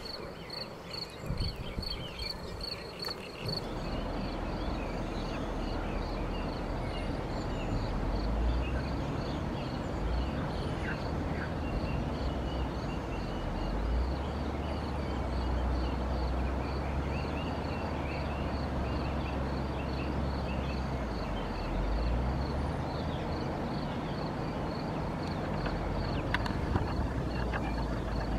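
Outdoor ambience by a river: an insect, a cricket, keeps up an even, high chirping over a steady rushing noise with a low rumble. There are a few short higher chirps now and then.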